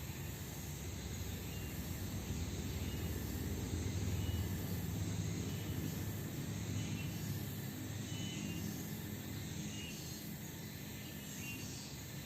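A distant engine rumble that swells to its loudest about four seconds in and slowly fades, as of a passing vehicle or plane, over steady insect chirring that pulses about once a second.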